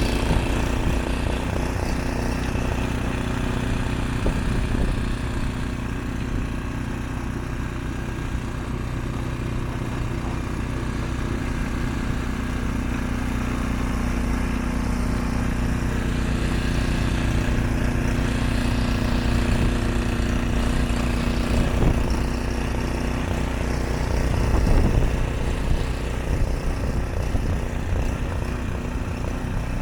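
Ariens Deluxe 30 two-stage snowblower engine running steadily at working speed while the machine clears deep snow, with a couple of brief louder knocks near the end.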